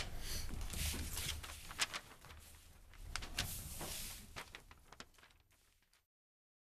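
Scattered rustles, clicks and light knocks of people moving about a meeting room after adjournment, over a low steady hum. The sound cuts off abruptly to dead silence about six seconds in.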